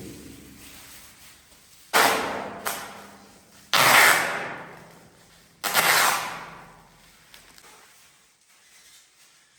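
Three loud, sudden impacts about two seconds apart, each trailing off over a second or so.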